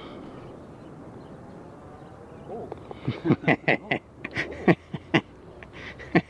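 A bird calling in a run of short, harsh calls, about a dozen over three seconds, starting about three seconds in, over faint outdoor background.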